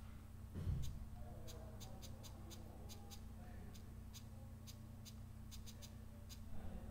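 Sparse, irregular light clicks of computer keys and mouse buttons over a steady low electrical hum, with one dull thump just over half a second in.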